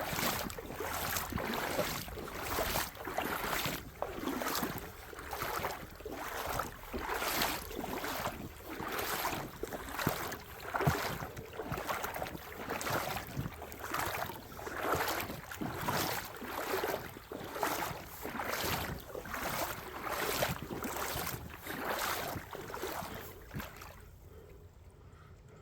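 Footsteps walking at a steady pace, about two steps a second, stopping near the end.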